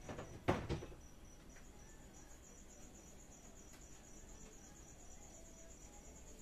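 A cricket trilling steadily in a high, even pulse. Two sharp knocks sound about half a second in.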